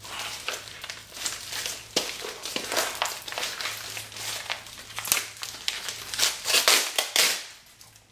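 Packing tape and plastic wrapping crinkling and crackling as they are picked at and peeled off a heavily taped package, in irregular bursts that grow denser and louder past the middle and then die away near the end.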